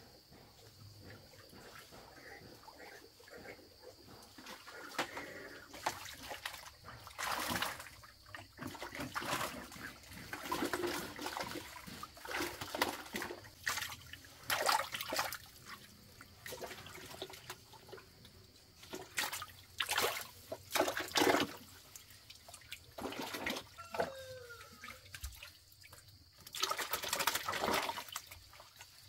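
Water splashing and pouring in irregular bursts, each up to a second or two long, with the longest near the end.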